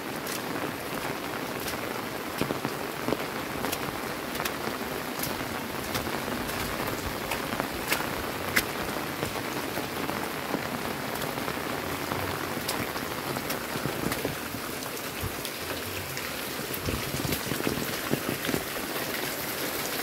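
Steady rain falling, an even hiss of rain with many separate drops ticking on nearby surfaces.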